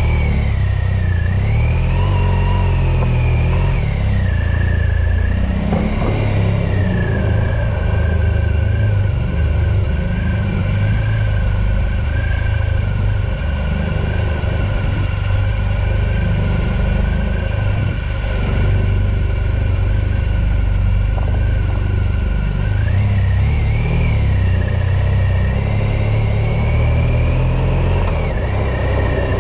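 A small vehicle's motor running as it is ridden, its whine rising and falling with speed and holding steady through the middle stretch, over a steady low rumble of wind on the microphone.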